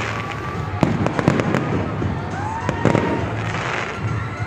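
Aerial fireworks display going off: a run of sharp bangs and crackling bursts, bunched about one to one and a half seconds in and again around three seconds in.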